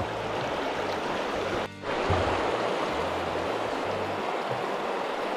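Steady rushing of a river's fast current, an even wash of water noise, with background music playing a low bass line over it; the sound drops out briefly just under two seconds in.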